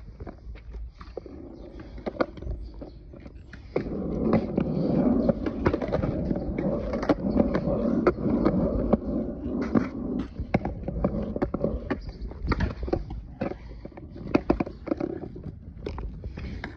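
Skateboard wheels rolling on a concrete sidewalk, a steady rumble that sets in about four seconds in, broken by frequent sharp clicks and knocks.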